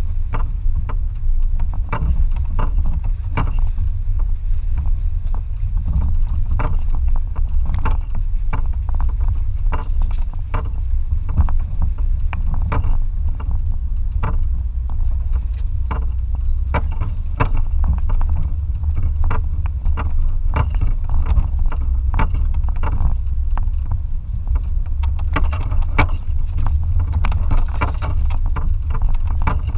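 2004 Toyota Tacoma TRD Off-Road pickup driving, a steady low rumble with frequent short knocks and rattles throughout.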